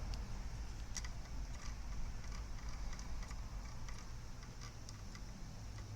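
Quiet workbench background: a steady low hum with a few faint, light ticks scattered through it.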